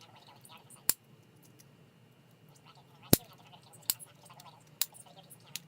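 Sharp clicks of small repair tools and phone parts being handled on a work surface, five in all, the loudest about three seconds in.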